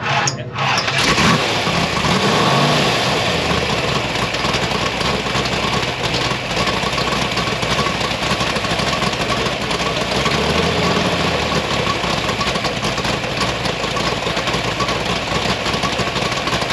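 A car engine starts about a second in and keeps running loudly.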